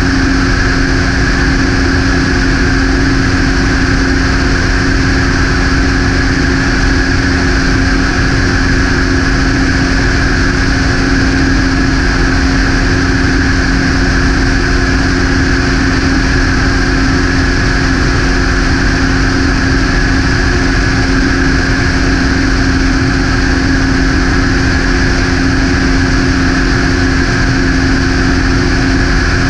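Propeller aircraft engine and propeller droning steadily in level cruise, with an unchanging low hum and a higher buzzing band.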